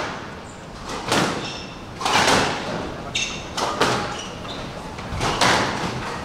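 Squash rally: the ball cracked by rackets and slapping off the walls, sharp hits roughly once a second, with short sneaker squeaks on the wooden court floor between them.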